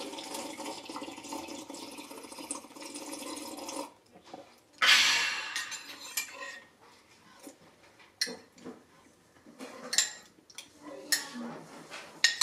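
Tap water running into a sink, stopping about four seconds in. A brief loud rush follows, then scattered clinks and knocks of dishes and utensils.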